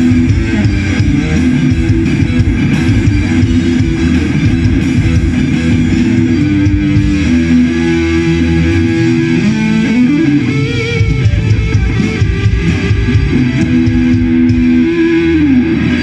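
Live rock band playing an instrumental passage: an electric guitar holds long notes, sliding in pitch about ten seconds in and again near the end, over drums and bass guitar.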